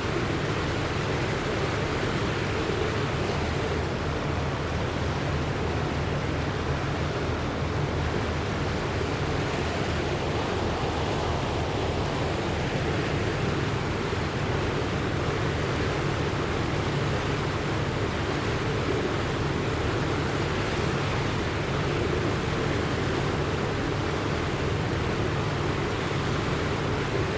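Continuous rushing of floodwater, an even noise like surf that holds the same level throughout.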